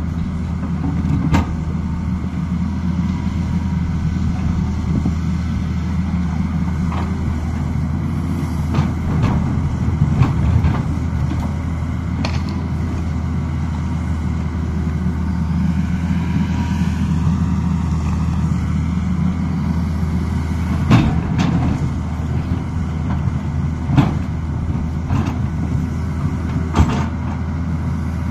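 Tata Hitachi 220 excavator's diesel engine running steadily under working load. A whine rises and falls about halfway through, and sharp knocks and clanks come repeatedly from the bucket working rocky soil.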